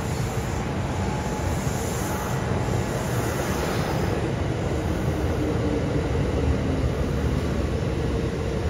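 Kintetsu 1400 series electric train rolling into the station platform and slowing, with a steady rumble of wheels and running gear and a faint motor tone.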